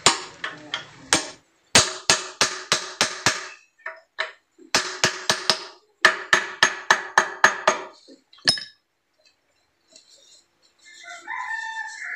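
Hammer striking metal in quick runs of blows, about five a second, each strike ringing, with short pauses between the runs: riveting (peening) a reconditioned car ball joint to lock it in place. Near the end a rooster crows.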